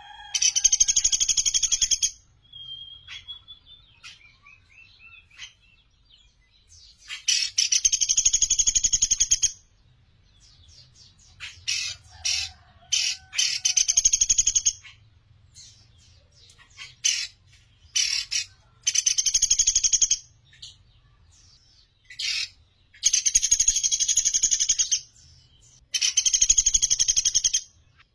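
Sunda pygmy woodpecker (pelatuk beras) giving repeated fast rattling trills of high notes, most about two seconds long, some shorter, with short pauses between. Fainter whistles of other birds come in the gaps.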